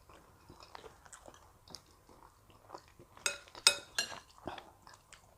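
A person chewing a mouthful of rice and stew: soft, scattered mouth clicks and smacks, with a short run of louder smacks a little past the middle.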